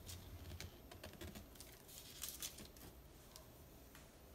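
Chef's knife cutting through a thin sheet of silver-leafed kaju katli (cashew fudge) on baking paper: soft, scattered clicks and crackles of the blade pressing through and meeting the paper, loudest about two seconds in.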